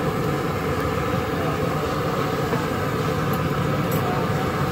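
Steady, dense roar of street traffic, with a couple of faint clicks near the end.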